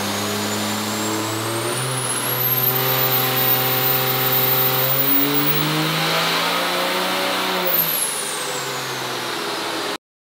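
2006 Dodge Ram's 5.9 L Cummins diesel making a pull on a chassis dyno. The engine note climbs in steps while a high whine rises and holds, then both fall away as it comes off the throttle near the end.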